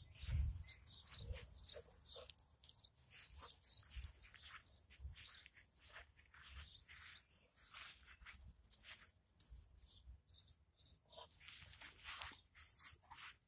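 Faint chirping of small birds, many short high calls through the whole stretch, with a few low thumps, the loudest about half a second in.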